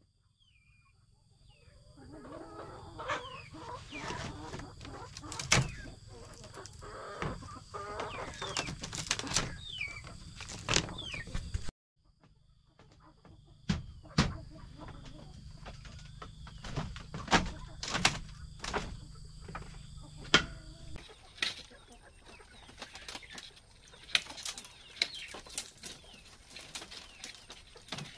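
Chickens clucking and calling, with sharp knocks every second or two that are the loudest sounds. The sound cuts out abruptly about twelve seconds in, then resumes.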